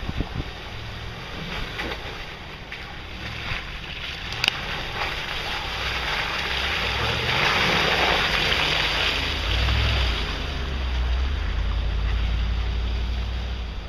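Land Rover Discovery driving through a flooded mud trail: its engine running and its tyres splashing through muddy water, growing louder as it comes close and passes about eight seconds in, leaving a low engine rumble afterwards.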